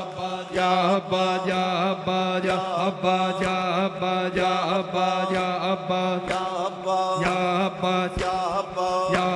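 Noha recitation: voices chanting a slow, repeated mourning refrain over a steady low hum, with regular thuds of hands beating on chests (matam) keeping time.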